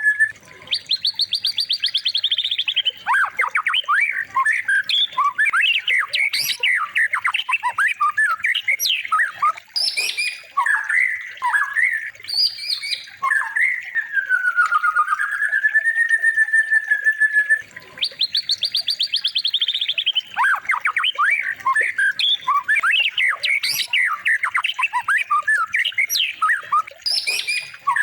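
Looped recording of songbird song played as a training recording for white-rumped shamas: a fast trill, then a run of varied sharp chirps and squawky notes, then a long whistled note that dips and rises. The whole sequence starts over a little past halfway through.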